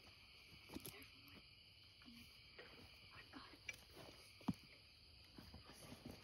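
Faint, steady high-pitched chorus of night insects, with soft rustles and small clicks from movement through the grass and one sharper click about four and a half seconds in.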